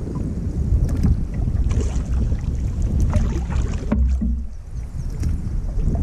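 Wind buffeting the microphone of a camera low on a canoe's bow, a heavy, uneven low rumble that eases briefly about four and a half seconds in. Over it, choppy water splashes and slaps irregularly against the canoe's hull.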